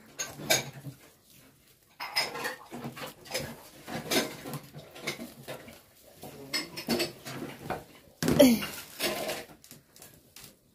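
Long chopsticks stirring in a metal cooking pot, clinking and knocking against its rim and sides in irregular taps. About eight seconds in there is a brief pitched cry, the loudest sound.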